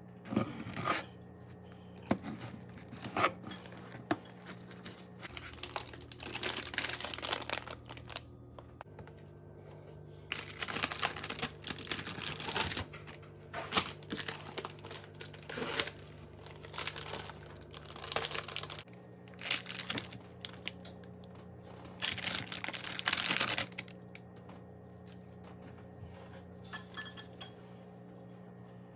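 Food packaging crinkling and being torn open in repeated bursts of a few seconds each during sandwich making, over a steady low hum.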